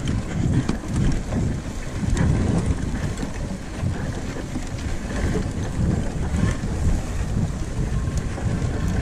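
Mobility scooter driving over rough, tussocky grass, with wind buffeting the microphone: an uneven low rumble and noise with no clear motor tone.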